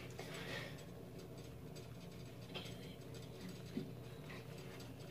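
Quiet room tone with a steady low hum and a couple of faint clicks.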